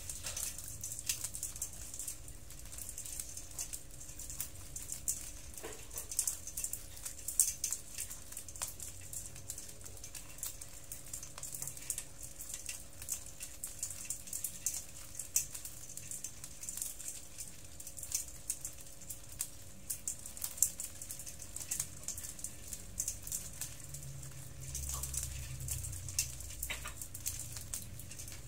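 Dozens of small hermit crabs crawling over one another in a basin, their shells clicking and rattling against each other and the basin in a constant, irregular patter of fine clicks.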